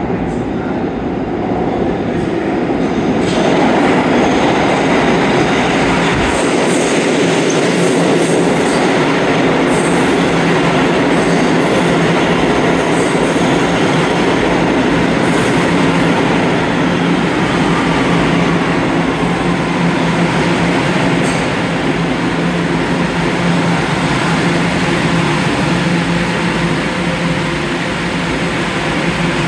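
Kawasaki R211A New York City subway train pulling into the station from the tunnel and braking to a stop: wheels running on the rails, getting louder about three seconds in as it enters. A steady hum and a faint whine falling in pitch as it slows.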